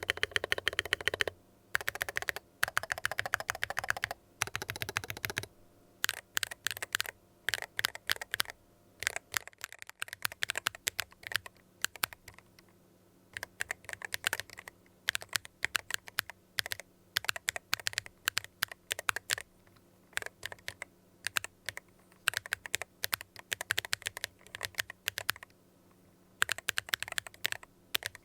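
Typing on an IYX MU68 Ultra mechanical keyboard with OKT Amethyst magnetic switches: rapid runs of crisp keystroke clacks in bursts, with a few short pauses between them.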